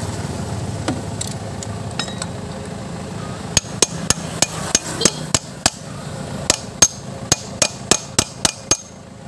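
Hammer blows on a steel socket bar held against a truck's front wheel hub cap, knocking the cap loose to reach the wheel bearings. About sixteen sharp strikes start about three and a half seconds in, at roughly three a second, with a short pause midway.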